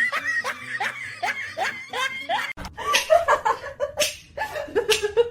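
A person laughing in short repeated bursts, cut off suddenly about halfway through and followed by more bursts of laughter.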